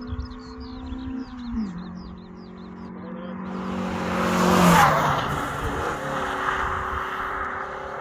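A hillclimb race car's engine under full throttle, approaching with a gear change about a second in, loudest as it passes about five seconds in, its pitch dropping as it goes by, then pulling away round the bend. Birds chirp faintly in the first few seconds.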